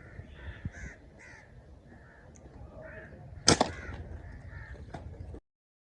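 Birds calling repeatedly in short harsh notes, with one sharp loud crack about three and a half seconds in; the sound cuts off abruptly shortly before the end.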